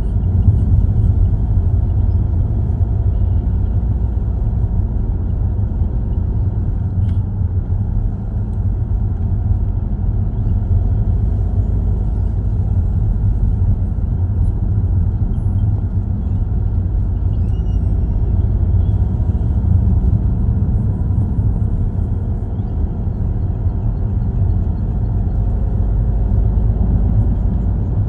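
Steady low rumble of road and engine noise heard inside the cabin of a car driving at an even pace on wet asphalt.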